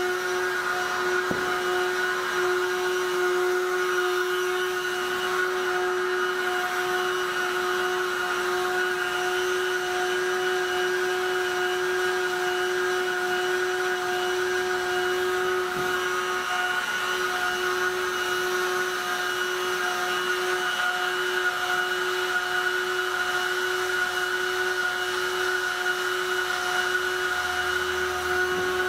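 Handheld electric heat gun running steadily, its fan motor giving an even-pitched whir over the rush of hot air. It is softening the plastic tabs of a honeycomb intake mesh so they can be bent over and set.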